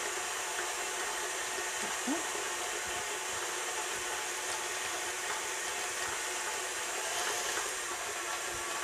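KitchenAid Artisan stand mixer running steadily, its flat beater creaming butter and brown sugar in a glass bowl.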